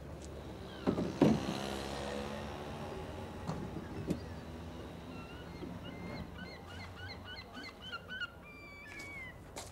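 Street ambience: a knock about a second in, then a motor vehicle's engine passing with a slowly falling note. In the second half, short high chirps repeat over the background.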